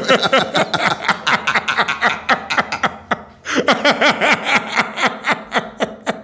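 A man laughing hard in a rapid ha-ha-ha. He pauses for breath about three seconds in, then laughs again.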